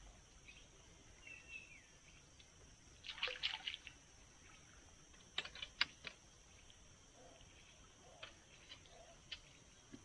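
Small water splashes and drips in two brief flurries, about three seconds in and again just before six seconds, with a few scattered ticks after, over a faint steady high insect buzz.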